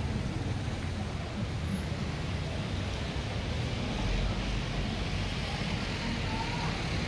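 City street traffic: the engines of passing cars, tricycles and motorcycles running in a steady wash of noise.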